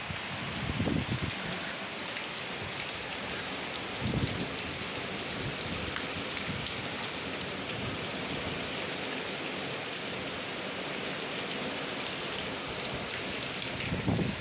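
Heavy rain pouring steadily, a dense hiss. Brief low swells come about a second in, around four seconds in and again near the end.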